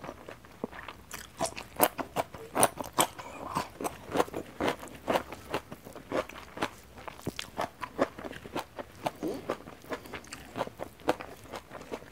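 Crisp crunching and chewing of a raw yardlong bean close to a clip-on microphone: many sharp crunches in quick succession.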